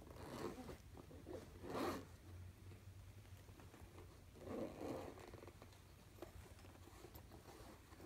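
Faint rustling and scraping against a quilted bed cover in three soft bursts, the loudest about two seconds in.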